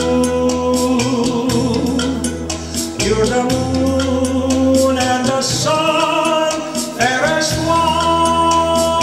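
Belly-dance music: a held, wavering melody, likely sung, over a steady drum beat and bass.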